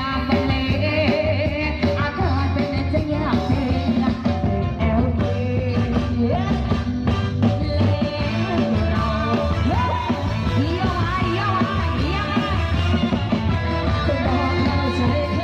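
A rock-style song with singing and a heavy, steady bass, played through a car audio system.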